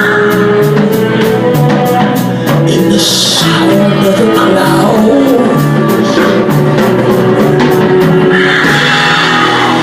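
A band playing rock music with a steady drum beat, a stepping bass line and guitar, with a singing voice.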